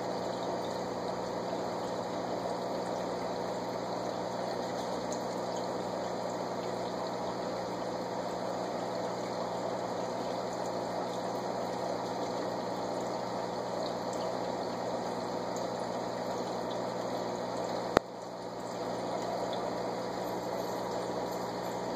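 Steady water-and-motor noise of running aquarium equipment: a constant low hum with bubbling water over it. A single sharp click sounds near the end.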